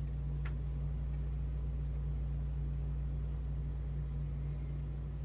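Steady low hum, with two faint light ticks in the first half second from a lock pick working the pins inside the lock.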